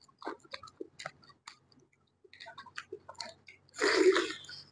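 Close-miked eating sounds: small wet clicks of chewing and of fingers mixing rice and curry on the plate. Near the end comes a louder noisy burst of a little under a second as a handful of rice is taken into the mouth.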